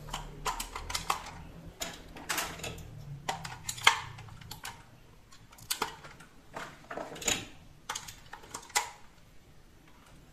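Batteries being pushed one by one into a plastic toy's battery compartment: scattered sharp clicks and knocks of the cells against the plastic and the spring contacts.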